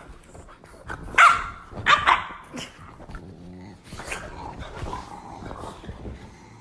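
A dog barking twice, sharp and loud, about a second in, followed by a short growl and smaller snarling barks: an annoyed dog warning off another dog that wants to play.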